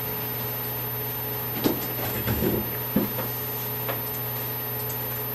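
Steady room hum with a few short knocks and clicks of handling at a desk, bunched between about one and a half and four seconds in.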